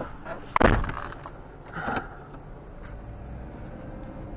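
A single loud bang of something slamming shut a little over half a second in, a smaller knock near the two-second mark, then a low steady rumble.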